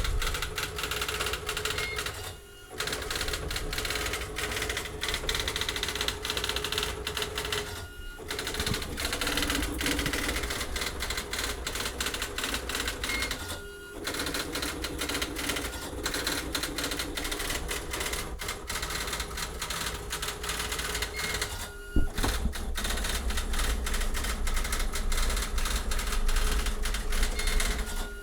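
Xerox Memorywriter 6010 daisy-wheel electronic typewriter printing a document on its own, driven over serial by an Arduino. It types in a rapid, continuous clatter of strikes, with brief pauses four times and a sharper knock about 22 seconds in.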